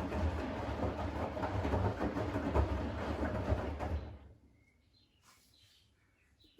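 Siemens front-loading washing machine in the main wash of an easy-care 40 °C cycle with extra water: the drum turns and the laundry tumbles and sloshes in the water, then the drum stops about four seconds in, pausing before it reverses. After that only a few faint short high sounds.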